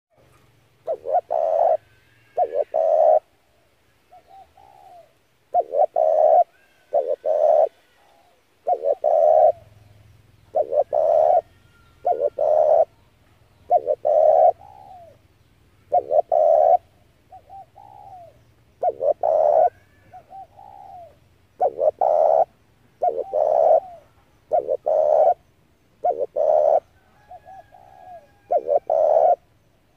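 Spotted dove cooing over and over: a loud phrase of short coos every two seconds or so, with softer coos in some of the gaps.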